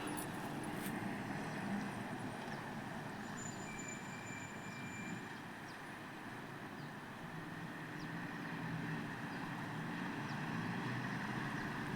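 Steady vehicle engine and road noise while travelling, a low rumble that eases slightly midway and builds again.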